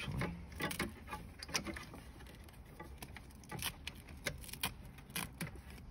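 Irregular light clicks and rustles as a car's wiring harness and its connectors are handled and worked loose from the cable loom by hand.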